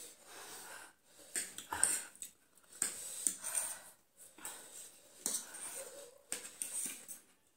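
Close-up eating sounds of spicy ramen noodles: repeated slurps and sharp, airy breaths drawn in through the mouth, with a few light clicks of forks on plates.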